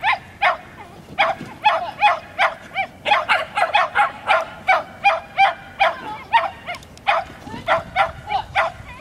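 Dog barking over and over in short, high barks, about three a second, without a break.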